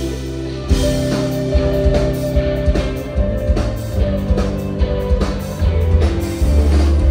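Live rock band playing loud: electric guitars over a sustained low drone, with the drum kit and full band coming in about a second in and driving on with steady beats.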